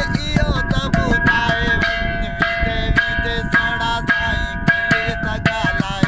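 A man singing a Sindhi folk song, holding long notes and sliding between them, over sharp clicks that keep a quick beat of about three a second.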